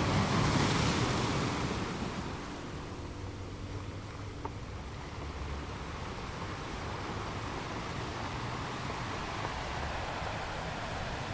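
Ocean waves on a shore: a wave swells and breaks in the first couple of seconds, then a steady, softer wash of surf.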